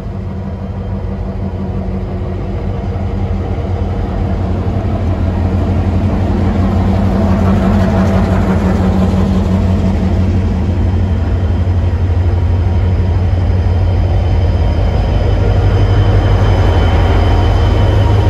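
Diesel-electric locomotives running past slowly at close range, a deep steady engine drone that grows louder over the first several seconds and then holds.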